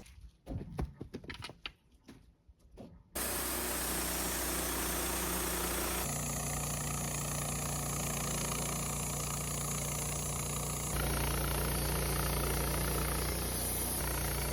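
A few faint clicks, then a band sawmill's engine starts running steadily and abruptly, stepping up in level about six seconds in and again near eleven seconds.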